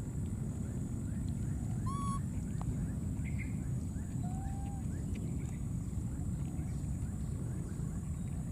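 Steady low rumbling noise of wind buffeting the microphone, with a faint high whine above it. Two short clear calls cut through: a higher one about two seconds in and a lower, arching one just after four seconds in.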